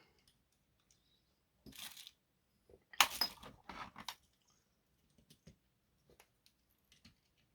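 Light clicks and rattles of small parts and tools being handled on a workbench, with the loudest cluster of sharp clicks about three seconds in and faint scattered ticks after.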